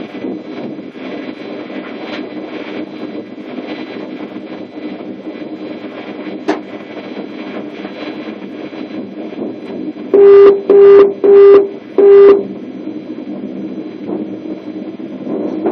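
Class 420 (ET420) S-Bahn electric multiple unit running along the track, heard from inside the driver's cab as a steady running noise. About ten seconds in, a cab buzzer sounds four short, loud beeps in quick succession, all on one pitch.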